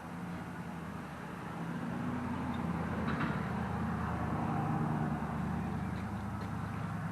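A low, steady motor-vehicle engine hum that swells about two seconds in and eases a little near the end.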